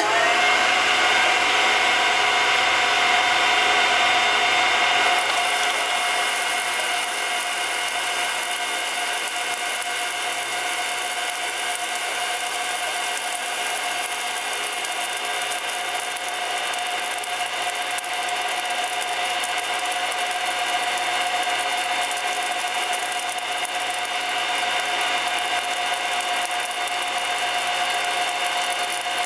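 A small oil centrifuge's electric motor spinning its bowl at full speed, having just come up to speed: a steady whine of several held tones. It is a little louder for the first five seconds or so, then settles.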